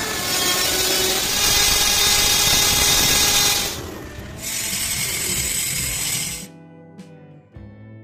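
Angle grinder mounted on a lathe's tool post grinding a metal workpiece turning in the chuck: a loud, even grinding hiss in two stretches with a short dip about four seconds in. It cuts off sharply after about six and a half seconds, leaving plucked guitar music.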